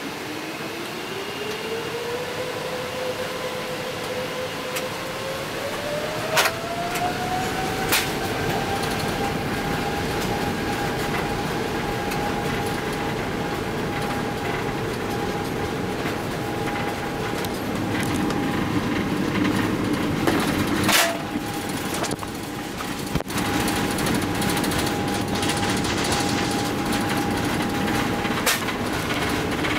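Boeing 777-300ER's GE90 jet engines spooling up to takeoff thrust: a whine that rises in pitch over the first several seconds and then holds steady over a constant rush of noise, with a few sharp knocks along the way.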